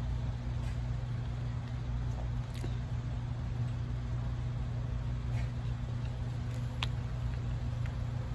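A steady low hum runs throughout, with faint scattered clicks and crackles of a grilled shrimp's shell being peeled by hand and of chewing.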